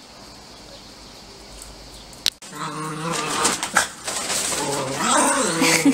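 Two dogs play-wrestling, giving low, wavering growls from about halfway through, after a single sharp click.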